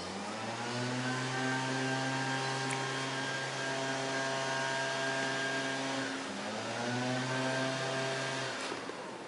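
An engine runs: its pitch climbs at the start and then holds steady, dips briefly about six seconds in, climbs again and holds, and then cuts out near the end.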